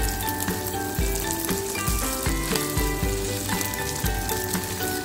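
Fried rice sizzling in a hot pan while a wooden spatula stirs it through, with scrapes against the pan, over background music.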